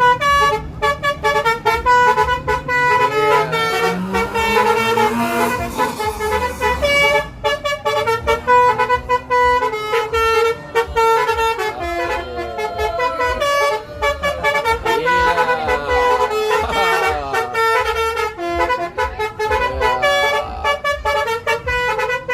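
Indonesian bus 'telolet basuri' musical air horn playing a tune of short, quickly changing notes.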